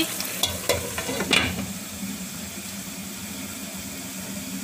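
A glass lid set down on a pan, with a few knocks and clinks in the first second and a half, then chicken simmering in its sauce under the lid with a steady hiss.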